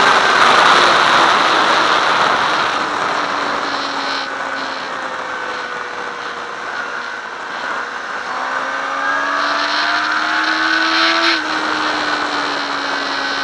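Sport motorcycle at track speed, heard from a bike-mounted camera: heavy wind rush over the microphone. Under it, the engine's pitch falls as the bike slows for a corner, climbs again under acceleration, and drops suddenly near the end.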